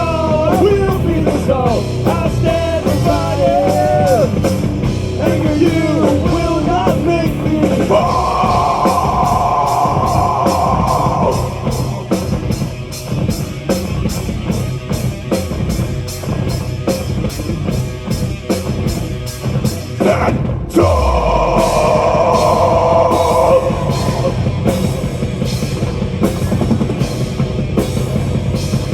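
Live metal band playing: rapid, regular drum-kit hits under distorted guitars and bass. A wavering melodic lead runs over the first several seconds, and a sudden downward pitch dive comes about twenty seconds in.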